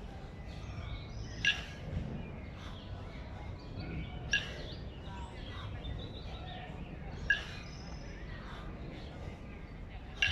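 Two 20 kg kettlebells knocking together with a short metallic clank at each jerk rep, four times, about three seconds apart, over a steady background of faint chirps.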